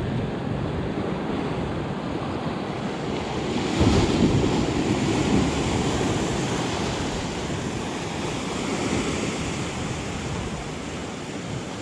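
Sea surf washing and breaking against shore rocks close by, with wind buffeting the microphone; a wave breaks louder about four seconds in.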